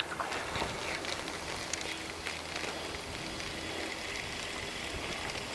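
Gentle lapping and trickling of small lake ripples close to the microphone, with scattered light ticks of water.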